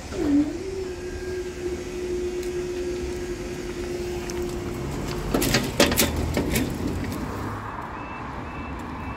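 Level-crossing barrier mechanism humming steadily for about four and a half seconds as the barrier arm rises, followed by a few sharp knocks. Near the end a level-crossing alarm starts, short high beeps about twice a second, as the amber warning light comes on.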